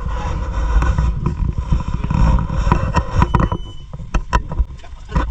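A fast rescue boat's electronic fuel-injected engine being started with the ignition key: a low mechanical rumble as it cranks and catches, easing toward idle about three and a half seconds in. Several sharp clicks or knocks follow.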